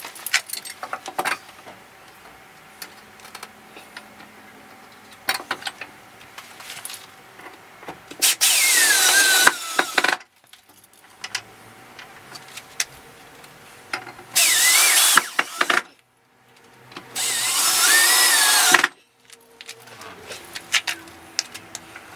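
Cordless drill-driver running in three bursts of a second or two each, driving screws into a timber gate rail to fix a steel security bolt; its pitch falls and wavers as the screws bite. Before the bursts come light clicks and knocks as the bolt is handled and held in position.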